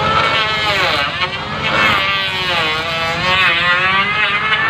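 Electric hand planer running as it shaves a wooden plank, its motor whine dipping and rising in pitch as the blades bite and the load changes.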